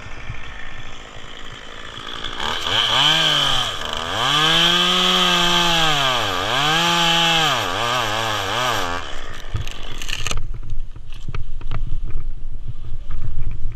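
Two-stroke chainsaw revving up and cutting through a eucalyptus trunk. The engine pitch sags and recovers several times as the chain loads in the cut, then it stops, leaving scattered knocks and rustling.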